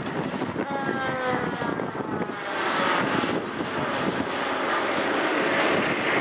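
Fire department aerial ladder truck driving past, its diesel engine running under load and getting louder as it nears. A short falling tone sounds about a second in.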